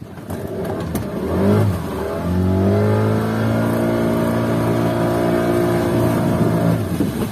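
Boat outboard motor close by, revving up about a second in, then running at a steady pitch before cutting away sharply near the end.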